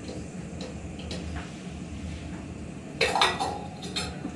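Light metallic clinks and knocks from the steam boiler's metal fittings being handled, over a steady low hum. There is a louder cluster of clatter about three seconds in.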